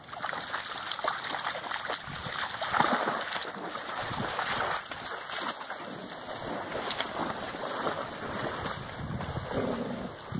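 Dogs splashing through shallow lake water, an irregular wash of splashes, loudest about three seconds in.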